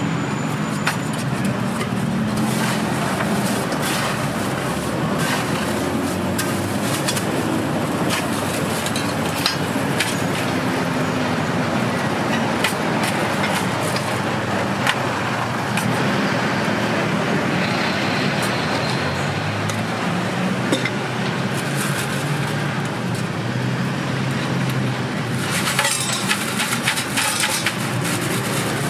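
Steady traffic and street noise, with frequent light clinks of metal spoons against steel cups and jars. Near the end there is a denser crackling as a plastic bag of iced coffee is twisted and tied shut.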